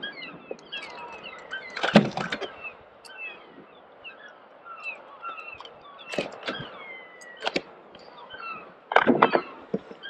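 Sharp knocks and rattles of a small cod being unhooked and handled on a sit-on kayak, strongest near the end, over many short bird calls chirping constantly in the background.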